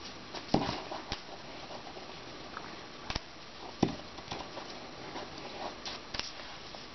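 Handling noise of hands working thin micro cord through a paracord bracelet: soft rustling and cord rubbing, with irregular light clicks and knocks, the sharpest about half a second in and near four seconds in.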